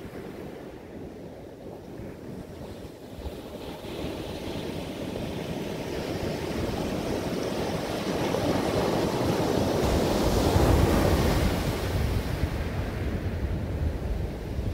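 Sea waves breaking and washing up a pebble beach, the surf swelling to its loudest about ten seconds in, then easing off.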